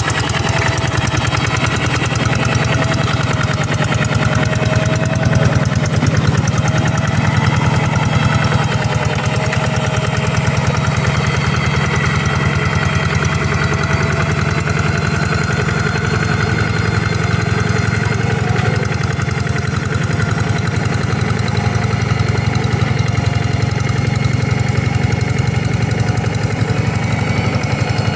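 Two-wheel hand tractor's single-cylinder diesel engine running steadily, with a fast, even knock to each firing stroke.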